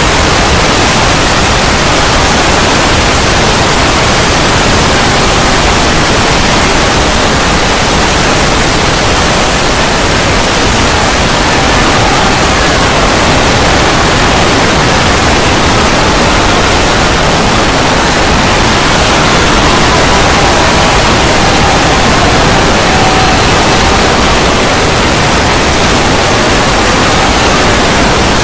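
Very loud, steady static-like noise covering all pitches, the deliberate blown-out 'loud noise' of a meme video, with faint tones buried in it partway through.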